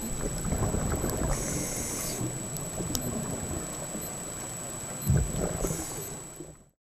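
Underwater ambience picked up by a camera in a dive housing: a low rumbling and gurgling water noise with scattered clicks and a faint steady high whine. There is a low thump about five seconds in, and the sound fades out near the end.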